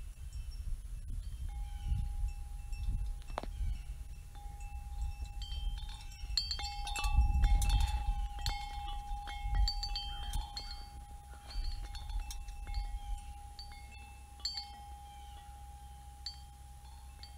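Wind chimes ringing, with one long held tone and scattered high pings. They are busiest and loudest around seven to eight seconds in, then thin out. A low rumble runs underneath.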